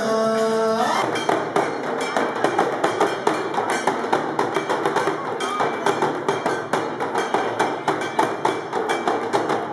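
A man's held sung note breaks off about a second in. Fast, steady drumming with sticks on a pair of timbales follows.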